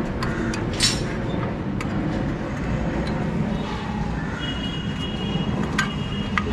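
Sharp metal clicks of a folding portable butane stove's stainless pot supports being swung open, once about a second in and twice near the end, over a steady low rumble.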